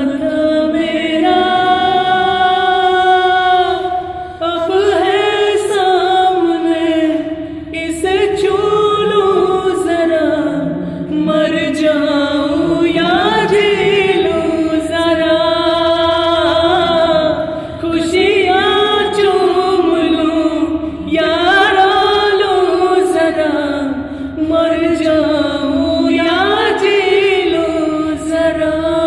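Unaccompanied male voice singing a Hindi film song in long, held, wavering phrases, with a short breath between phrases every few seconds.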